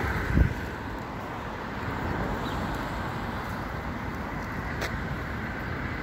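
Steady background noise of city road traffic, with a short low thump just after the start.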